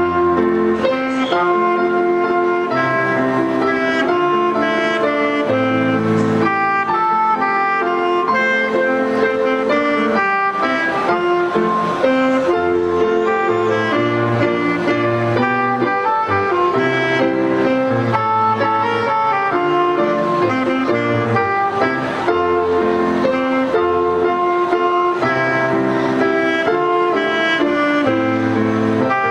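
Saxophone playing a melody over an accompaniment with a bass line and chords.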